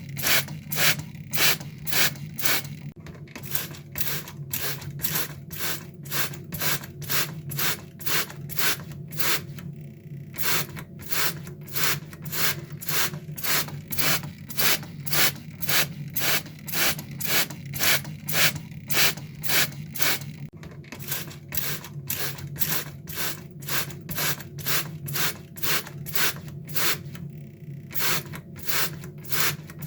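Water spray bottle squirted over and over, short hissing sprays about two a second, with a few brief pauses between runs.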